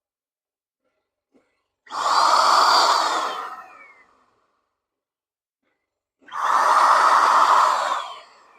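Avanti AV-100 handheld HVLP electric paint sprayer's turbine blower running in two short test sprays, each about two seconds long, about two and six seconds in. Each is a rush of air with a high motor whine that rises as it starts and falls away as it stops.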